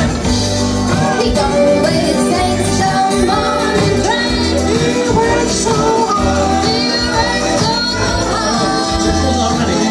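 A woman singing live into a microphone over a PA, with acoustic guitar accompaniment and a steady low beat underneath.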